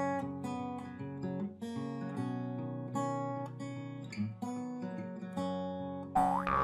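Acoustic guitar background music, plucked and strummed notes at a steady pace. Near the end a short rising cartoon sound effect cuts in over it.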